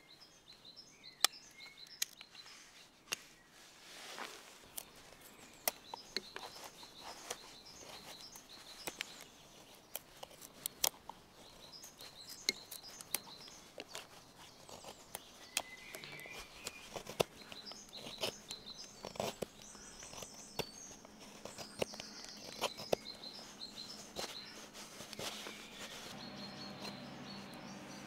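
Swiss Army knife blade whittling fresh wood, roughing out the shape of a wooden knife: irregular sharp clicks and scrapes as shavings are cut away. Small birds chirp in the background.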